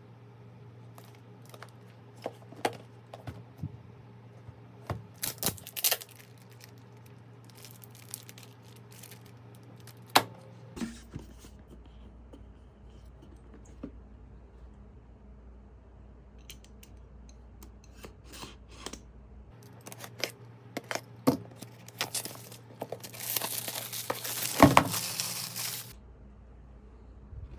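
Handling a shrink-wrapped cardboard box: scattered taps and clicks of the box and plastic against a table. Near the end comes a few seconds of plastic wrap being torn and crinkled, the loudest part.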